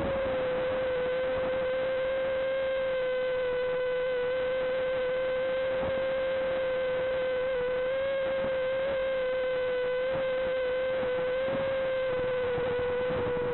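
FPV quadcopter's motors and propellers whining at a near-steady pitch, wavering slightly as the throttle changes during a slow cruise.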